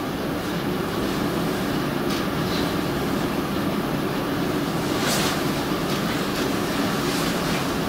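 Steady, even room noise, a continuous rumbling hum, with a few soft rustles and light handling sounds about two, five and seven seconds in.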